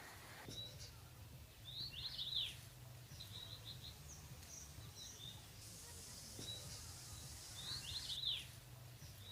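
A songbird sings a short phrase of sharply falling notes twice, about six seconds apart, with scattered single chirps in between, over a faint steady low background hum.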